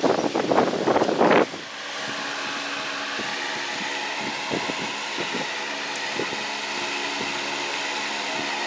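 Loud, gusty rumbling noise for about the first second and a half, then a steady mechanical hum with several fixed tones over a constant hiss.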